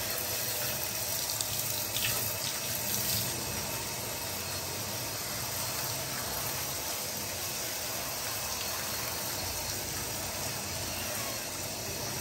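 Handheld shower head spraying water onto a wet kitten's back and into a bathtub: a steady hiss of running water.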